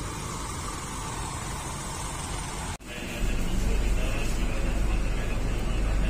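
A steady background hum of a bus terminal. About three seconds in it cuts off abruptly and gives way to a louder, steady low rumble of a city bus's engine and running gear, heard from inside the bus cabin.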